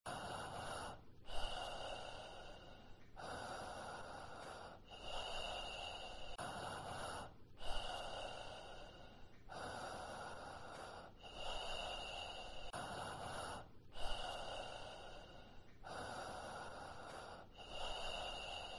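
A person breathing slowly and heavily, in and out in an even rhythm, about one full breath every three seconds, some breaths drawn in with a sharp catch.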